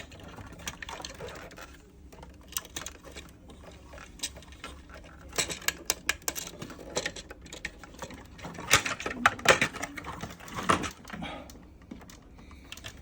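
Irregular light clicks and taps of hard objects being handled, with a cluster of louder knocks about two-thirds of the way in.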